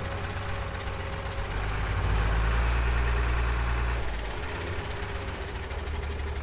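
Heavy engine running steadily with a deep rumble, growing louder for about two seconds in the middle before settling back.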